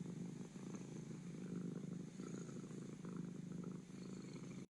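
Cat purring steadily in even cycles about a second long, cutting off abruptly near the end.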